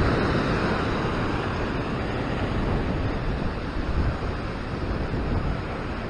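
Ocean surf washing over a rock ledge, a steady rush of white water, with wind on the microphone.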